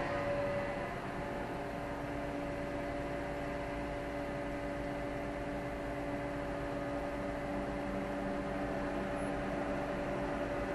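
Steady idling hum of traffic heard from inside a car's cabin while stopped at a light, a constant drone with a faint steady whine in it.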